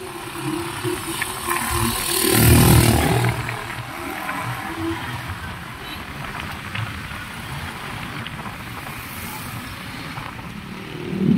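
Motorbike ride in slow street traffic: the bike's engine running under a steady rush of road and traffic noise, with a loud rushing swell about two seconds in that fades after a second or so.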